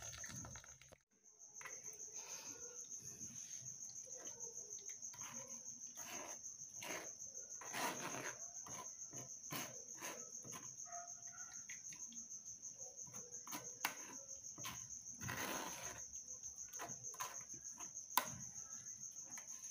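Insect chirping steadily in a high, rapidly pulsing trill, with scattered clicks and scrapes of a metal spoon pressing blended lemon pulp through a metal mesh sieve.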